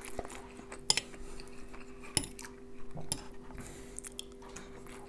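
Metal fork clinking and scraping on a ceramic plate while twirling boiled vermicelli, a few sharp clinks, with quiet eating sounds between them. A faint steady hum runs underneath.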